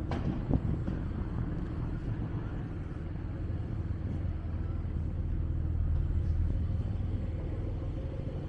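Steady low rumble of city street traffic, swelling about six seconds in as a vehicle goes by, with a sharp knock at the very start.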